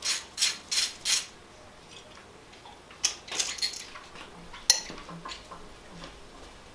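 A ratchet wrench with an E10 Torx socket clicking in quick strokes, about three a second, as an injector clamp bolt on a BMW N54 cylinder head is undone, stopping about a second in. Scattered light metal clinks and taps follow, with one sharp click about two-thirds through.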